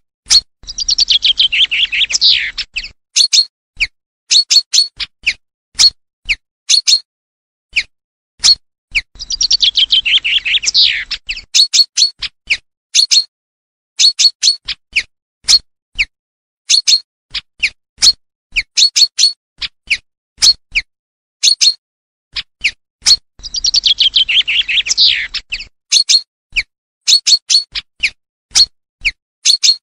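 Common chaffinch singing: three song phrases, each a rapid falling series of notes lasting about two and a half seconds, with many short sharp call notes, often in pairs, between them.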